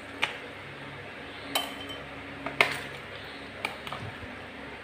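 A spoon clinking against glass tumblers and a plastic tub as jelly cubes are spooned into the glasses: about four sharp clinks, roughly a second apart.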